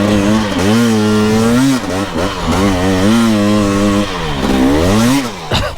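Dirt bike engine revving hard under load in deep mud, its pitch rising and falling several times as the throttle is worked, then dropping away near the end.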